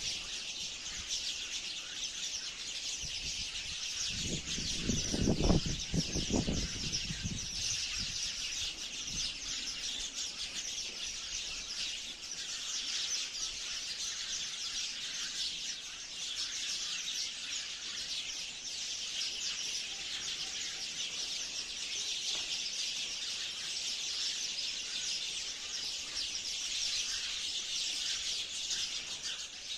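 A flock of sparrows chirping continuously in a dense, overlapping chorus. A brief low rumble cuts in about four to seven seconds in.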